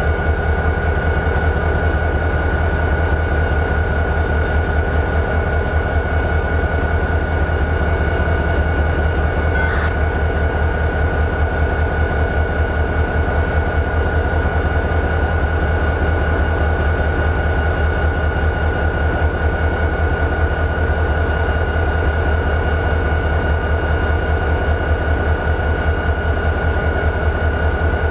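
EMD 645 diesel engine of a GP40-2 locomotive idling steadily, a pulsing low rumble with a steady high-pitched whine over it.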